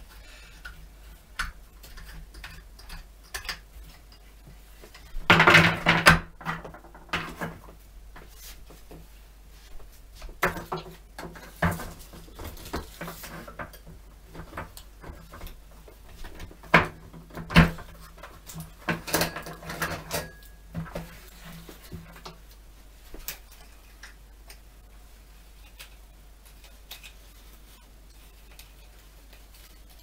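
Hard plastic parts of a floor fan's stand and cross-shaped base knocking and clattering as they are fitted together and handled. The knocks are scattered, with the loudest clatter about five seconds in and further bursts around twelve and seventeen seconds.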